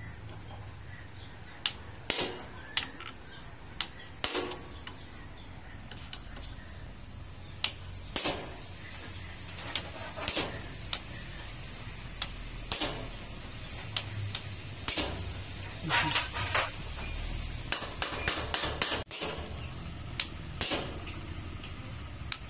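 Sharp metallic clicks and clinks of a socket wrench being worked on the clutch centre nut of a Bajaj CT100 motorcycle, coming irregularly, a few at a time, over a low steady hum.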